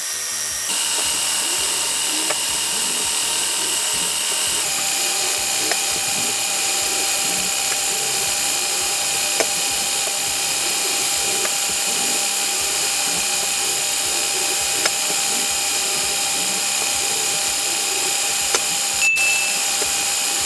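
Lego electric motors and gearing of a container gantry crane running, played back fast-forwarded into a steady high, drill-like whine. Its pitch steps down slightly about five seconds in, with a few faint clicks and one sharper click near the end.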